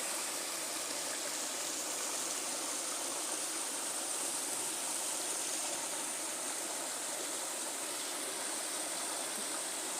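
Steady rush of a small river's water flowing over rocks, an even noise that doesn't change.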